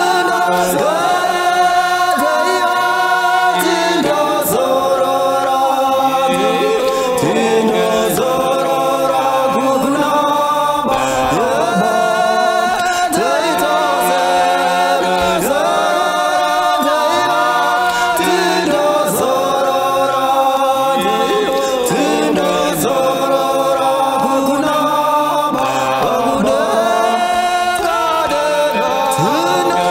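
A group of voices singing a Shona song together in close harmony, a cappella.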